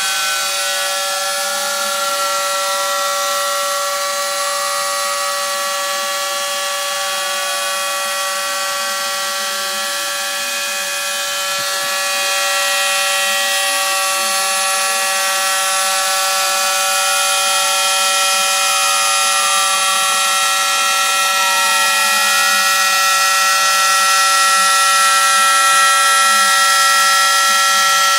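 Homemade CNC router cutting foam board: the rotary-tool spindle whines at a steady high pitch while the stepper motors whine in sweeping tones that rise and fall as the axes trace circular cuts. It gets a little louder about halfway through.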